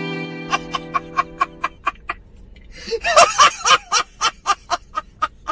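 Rapid staccato laughter at about four "ha"s a second, with a louder burst of laughing about three seconds in. Held notes of music fade out underneath in the first two seconds.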